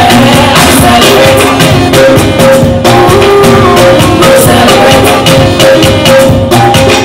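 Loud amplified music with a steady beat and shaker-like percussion, with a woman singing into a microphone over it through the PA.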